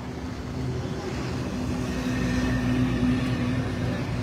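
A truck's engine rumbling as it drives along the road close by, growing louder for the first couple of seconds and easing slightly near the end.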